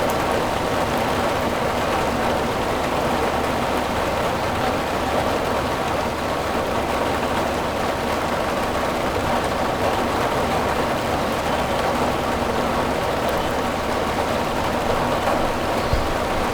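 Steady rain drumming on a sheet-metal roof, an even dense patter with a low rumble under it. A brief low thump sounds near the end.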